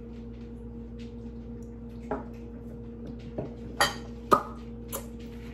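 About five sharp clinks and knocks of glassware being handled and set down on a table: emptied tequila shot glasses and drink bottles, the loudest pair a little after the midpoint. A steady low hum runs underneath.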